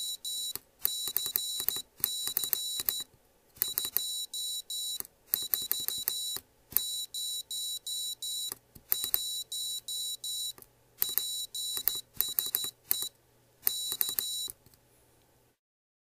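Piezo buzzer on an IchigoJam microcomputer board sending Morse code as a high-pitched beep. The tone is keyed from a tactile switch: holding it sends dashes automatically and dots are tapped by hand, giving groups of short and long beeps with short gaps. Each beep starts and stops with a click. The beeping stops shortly before the end.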